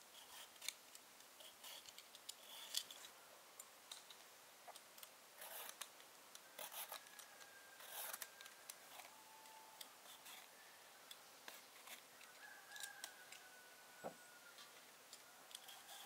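Faint, scattered small clicks and snips over near silence, with a few faint, short held tones in the middle and near the end.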